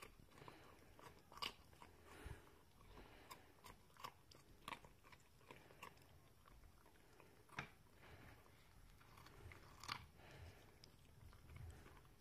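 German Shepherd puppy chewing a raw carrot: faint, irregular crunches and bites a second or two apart, the loudest about 7.5 and 10 seconds in.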